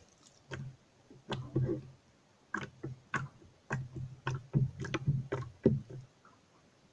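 Jiggly slime being squeezed and worked by hand, giving an irregular run of wet squelches and clicking pops that stop about six seconds in.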